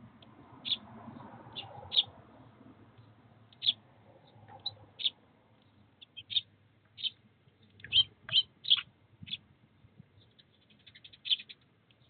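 Eurasian tree sparrows chirping: short, sharp, high chirps repeated irregularly, with a quick run of several about two-thirds of the way through.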